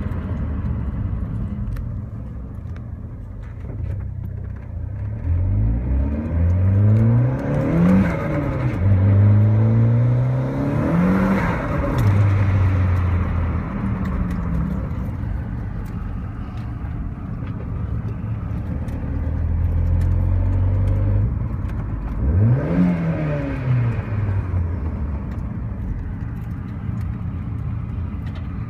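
Turbocharged four-cylinder engine of a 2010 Chevrolet HHR SS, heard from inside the cabin, pulling hard several times. Its revs climb and fall back repeatedly, settle into a steady drone between pulls, and rise once more in a short burst near the end.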